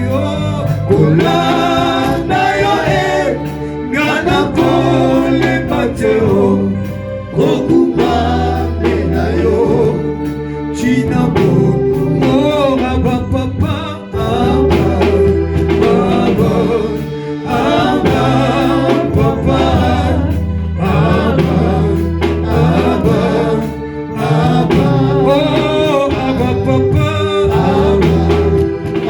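Gospel worship music with singing: voices singing over instrumental accompaniment with a steady bass line.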